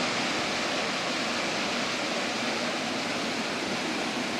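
Fast-flowing water rushing steadily, a loud unbroken roar with no rhythm.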